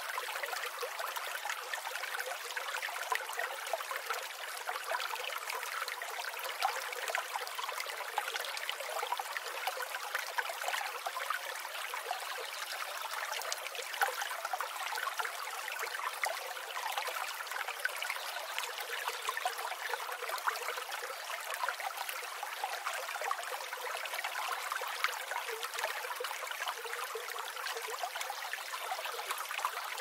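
Stream water flowing over stones, a steady babbling that never lets up.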